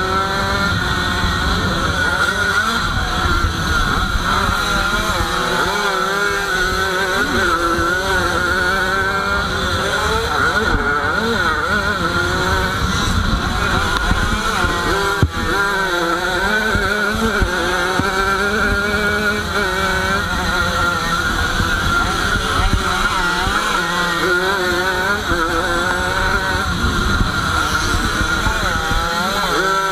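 Jawa 50 special motocross bike's small two-stroke engine, heard on board, revving up and down all the way as it is ridden around a dirt track. Wind noise rumbles under it, and there is a single sharp knock about fifteen seconds in.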